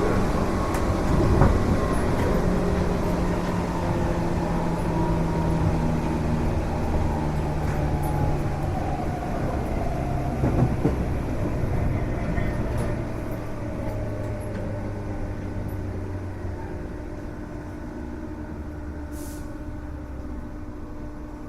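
A Tobu 8000 series resistance-control electric train heard from inside the car as it slows down. The motor and gear whine glides steadily down in pitch, and the running noise fades as the train decelerates.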